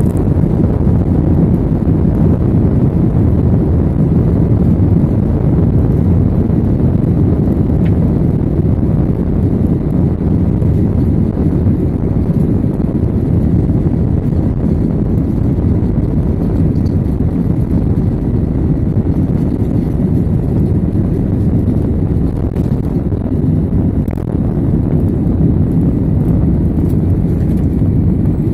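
Jet airliner at takeoff thrust, heard from inside the passenger cabin: a loud, steady low rumble of engines and runway roll that carries on unbroken through the takeoff run and lift-off.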